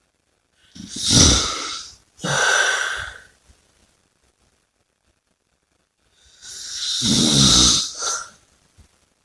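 Person snoring: two snoring breaths about five seconds apart. Each is a longer fluttering breath followed by a shorter breathy rush of air.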